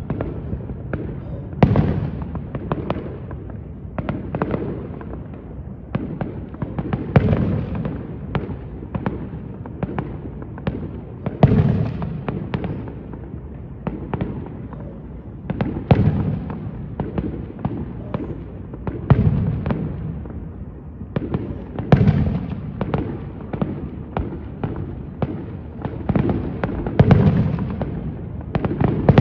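Aerial fireworks display: shells bursting overhead with a deep boom every few seconds, and many sharp pops and crackles in between.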